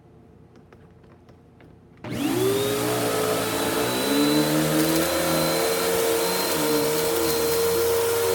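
Bissell vacuum cleaner switched on about two seconds in, its motor whine rising quickly to speed and then running steadily. Before that, a few faint clicks.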